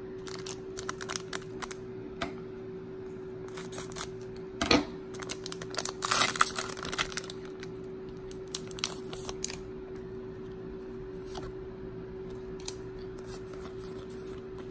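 A Pokémon Sun & Moon booster pack's foil wrapper being torn open, crinkling loudly for about two seconds midway through after a sharp click. Light clicks of the cards being handled come before and after, over a steady faint hum.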